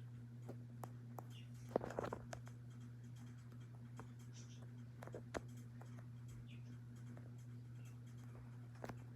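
Hampton Bay Littleton ceiling fan running, its motor giving a faint steady low hum, with a few light clicks and taps about two seconds in and again around five seconds in.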